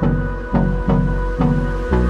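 Background music: an instrumental stretch of a pop song, with a steady beat of about two strokes a second over held bass notes.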